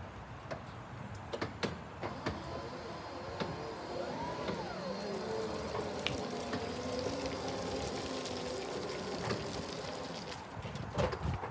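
Still R20-16 electric forklift driving: its electric drive motor whines, gliding up and then down in pitch about four seconds in and then holding a steady whine, over tyre noise on wet concrete. A few sharp clicks come in the first two seconds.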